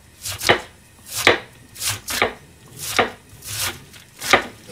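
Kitchen knife slicing through cabbage onto a plastic cutting board, about seven separate strokes at an uneven pace, roughly one every half second to a second.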